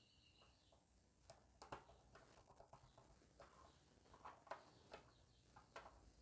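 Near silence with a few faint, scattered clicks and taps from a small screwdriver being worked on and lifted from a circuit board.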